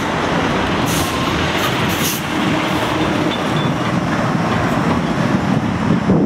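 Steady loud rumble of heavy vehicles passing, with brief hissing bursts about one and two seconds in.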